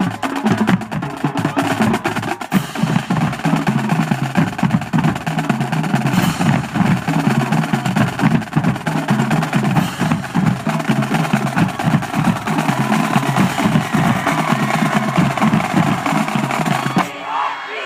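High school marching drumline playing a fast, dense cadence on snare and other drums. It stops about a second before the end, and a crowd starts shouting.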